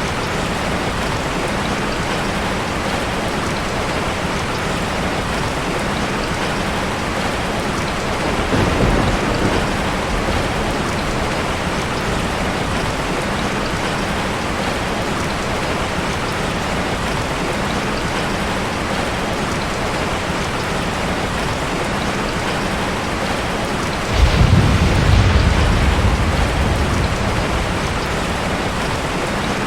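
Steady rain falling. A low rumble of thunder comes about eight seconds in, and a louder, longer roll of thunder starts about 24 seconds in and slowly fades.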